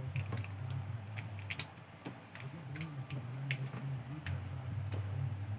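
Small plastic clicks and taps, scattered and irregular, as a phone holder clamp is handled and fitted onto a microphone stand, over a steady low hum.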